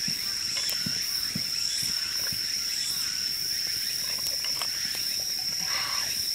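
A dusk insect chorus: one steady, high-pitched trill that does not let up. Small pops and crackles from a wood campfire are scattered through it.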